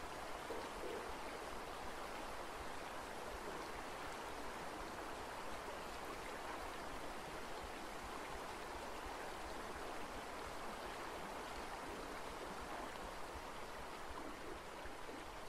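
A steady, even rushing noise, like running water, that does not change.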